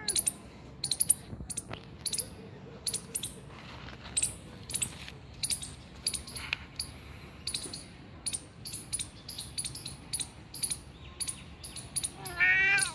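A domestic cat meows once near the end, a short call that falls in pitch. Under it runs a scatter of short, sharp clicks, several a second.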